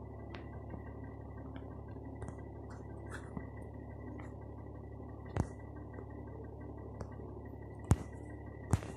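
Faint steady background noise with a thin steady high whine, broken by a few sharp clicks, the loudest about five and a half and eight seconds in and another near the end.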